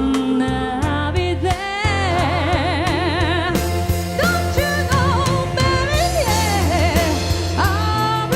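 Soul-pop ballad: a lead voice singing long held notes with vibrato over piano, bass and a steady beat.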